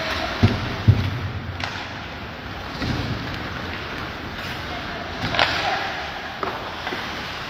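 Ice hockey play: two heavy thuds about half a second and a second in, typical of a puck or player hitting the boards, and sharp stick-on-puck clacks about a second and a half and five seconds in, over steady rink noise.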